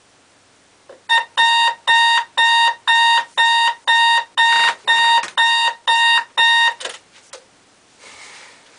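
Digital alarm clock beeping in a fast, even series, about two and a half beeps a second for nearly six seconds, then stopping with a click. A soft rustle of movement follows near the end.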